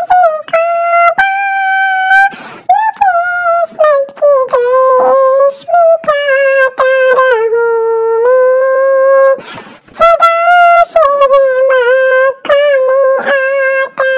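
A high-pitched voice singing an unaccompanied naat, an Islamic devotional song, in long held and bending phrases, with breaths between them.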